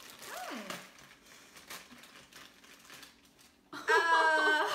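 Faint crinkling of a small wrapper being opened by hand. Near the end comes a woman's loud, drawn-out vocal exclamation.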